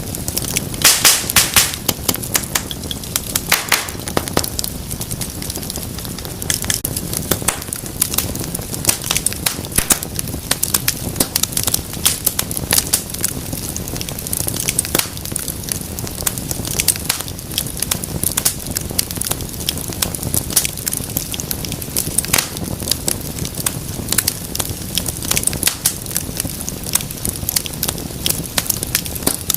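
Wood fire crackling and popping, with frequent sharp snaps over a steady low rumble of flames; a dense cluster of pops comes about a second in.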